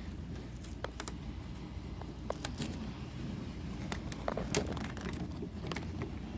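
Steady rain noise with scattered, irregular sharp clicks and taps.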